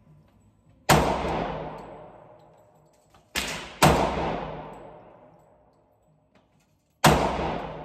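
Handgun shots in an indoor range: four sharp cracks, about a second in, a pair half a second apart around three and a half seconds (the first of the pair softer), and one near the end. Each is followed by a long echo that dies away over about two seconds.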